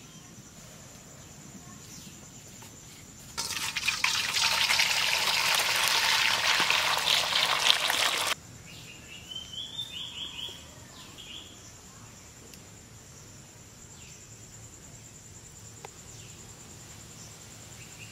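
Water poured in a steady stream into a steel bowl for about five seconds, starting and stopping abruptly. A few seconds later come a few short, high bird calls.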